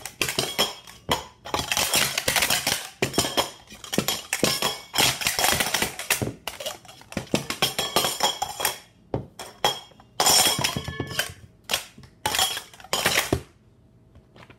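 SpeedStacks SuperStax weighted metal sport-stacking cups being stacked up and down at speed in a timed cycle run: rapid metallic clattering and clinking in quick flurries with short lulls between sequences. The clatter stops about a second before the end.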